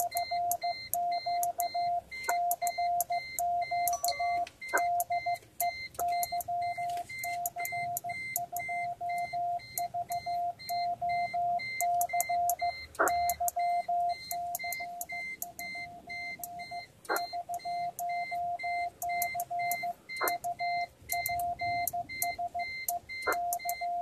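Morse code from a Yaesu FT-450 HF transceiver: a steady pitched tone keyed on and off in dots and dashes, with a sharp click at the key strokes and a handful of louder clicks scattered through.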